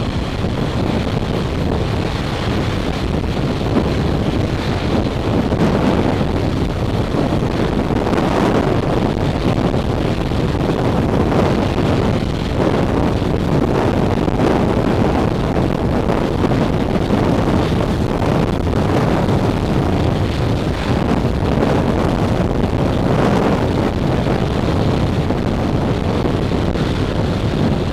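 Typhoon gale wind buffeting the microphone: a loud, steady rushing noise that swells and eases in gusts every few seconds.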